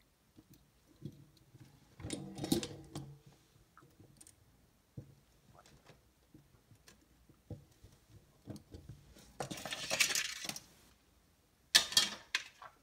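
Small clinks, knocks and clatter of tools and parts being handled and set down on a workbench, with a rubbing, sliding sound about ten seconds in and sharp knocks near the end.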